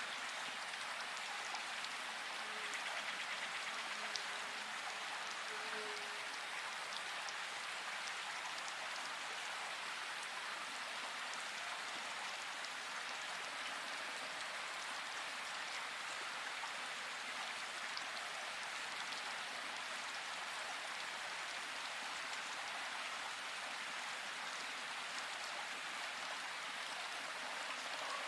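Steady rainfall in a forest: an even hiss of rain with scattered individual drops ticking.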